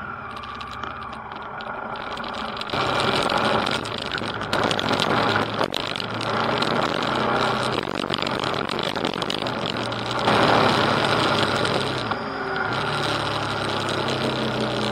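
Motorcycle engine running while riding a gravel track, heard from on the bike with a broad rushing noise of the ride. The engine note shifts in pitch and loudness several times, stepping up about 3 s in and again around 10 s.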